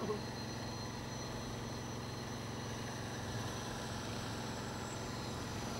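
BAE Hawk jet trainer's turbofan engine running as the jet taxis, a steady whine of high thin tones over a low rumble.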